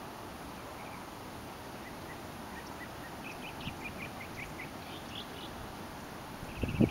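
Small birds chirping, a run of short, high chirps through the middle, over a steady outdoor hiss. A couple of low thumps of wind or handling hit the microphone near the end.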